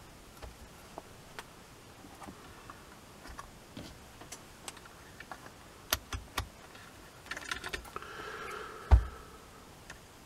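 Small clicks and taps of a digital multimeter being handled: its rotary range dial turned and its test leads picked up and touched together, with a single heavier knock near the end.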